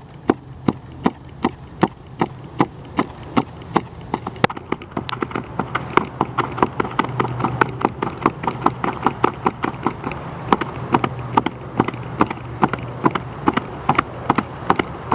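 Stroops battle rope clipped to a plate-weighted Ultimate Anchor being whipped in waves, giving a steady rhythm of sharp clacks at about three a second that comes faster and denser about a third of the way through.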